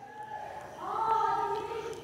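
A faint voice in the background holding one steady note for about a second, starting a little under a second in.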